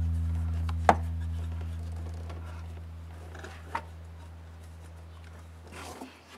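A sustained low bass note of background music fading slowly and stopping about six seconds in. Over it come a few sharp clicks, one about a second in and one near four seconds, from a hand working among the engine parts.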